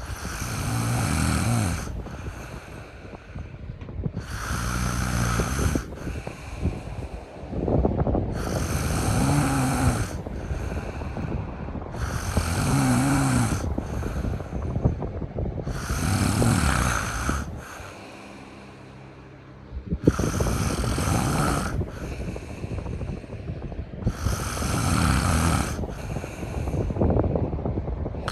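A sleeping cat snoring, with a rasping snore about every four seconds, each lasting a second or two, and a brief lull about two-thirds of the way through.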